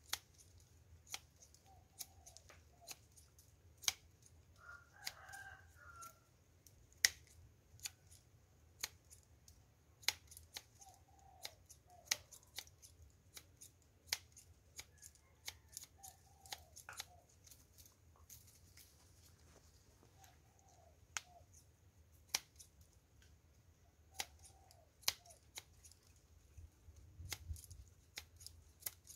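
A rooster crowing once about five seconds in, with shorter fowl calls here and there. Frequent sharp clicks at irregular spacing, about one a second, run through it all.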